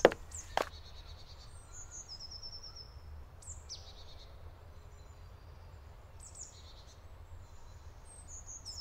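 Woodland ambience: songbirds giving brief high chirps and short trills over a faint steady low rumble, with two short sharp knocks near the start.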